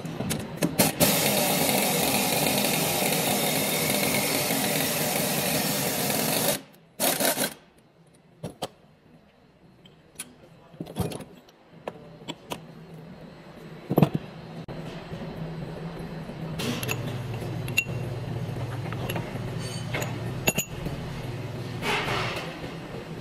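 Power wrench running continuously for about six and a half seconds, driving a ball joint press to force the lower ball joint out of the steering knuckle, with a second short burst just after. Then scattered metallic clicks and knocks as the press and parts are handled, and a low steady hum later on.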